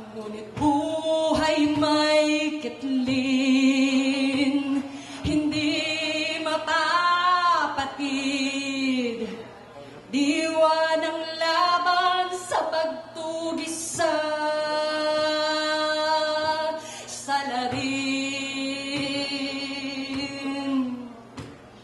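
A woman singing a cappella in Tagalog, with no instruments: long melodic phrases of held notes with a wavering vibrato, broken by short breaths about ten seconds in, near fourteen seconds and near the end.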